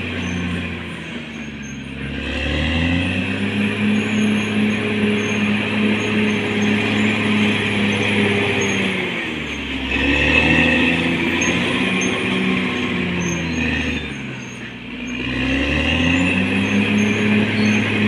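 Caterpillar D6R XL bulldozer's diesel engine running hard under load. Its pitch sags and climbs back three times: about a second in, around nine seconds, and around fourteen seconds.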